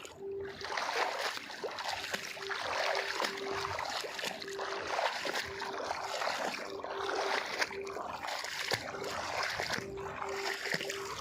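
Water splashing and sloshing in irregular surges, with a faint steady tone that keeps cutting in and out.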